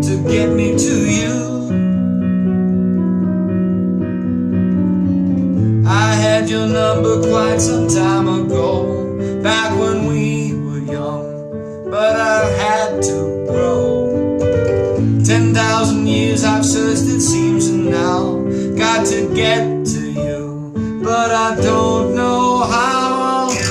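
Slow ballad music: sustained piano or electric-keyboard chords with a wavering melodic line over them and no sung words.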